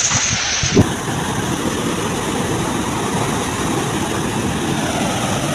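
Storm wind in wet foliage for under a second, ending with a short knock. Then a steady rushing roar from a swollen, fast-flowing floodwater river.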